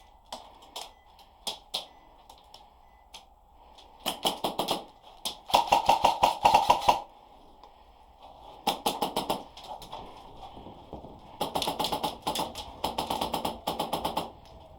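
Airsoft guns firing: a few single shots, then several fully automatic bursts of rapid cracks, the longest lasting about three seconds near the end.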